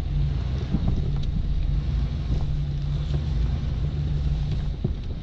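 Chevrolet 2500HD's Duramax V8 diesel engine running as the pickup creeps slowly forward, a steady low rumble heard from inside the cab.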